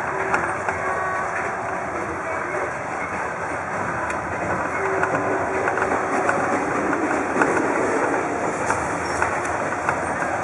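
Running noise of a Vietnamese sleeper train heard from inside the carriage: a steady rushing noise with scattered sharp clicks.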